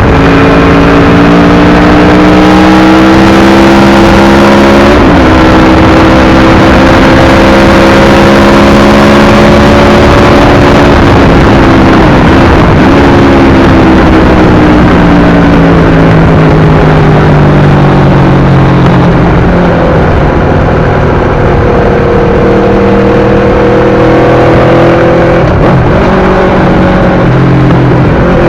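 Aprilia RSV4 1000's V4 engine through an SC-Project exhaust, pulling hard under riding load. The pitch climbs with sharp breaks at gear changes about five seconds and about twelve seconds in, drops as the throttle eases mid-way, then rises again near the end.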